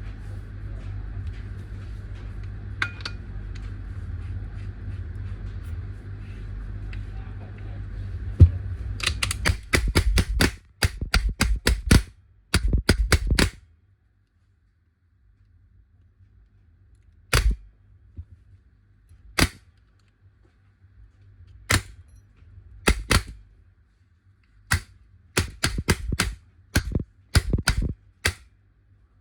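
A steady hiss over a low hum for about nine seconds, then a paintball marker firing: three quick strings of sharp shots, about eight a second, followed by single shots and short pairs every second or two. The marker has a burping fault whose cause is hard to pin down.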